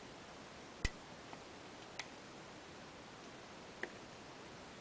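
A few sharp, isolated clicks of a lock pick and tension wrench working the pins of a Russwin rim cylinder, the loudest about a second in, as the picker probes for a binding pin.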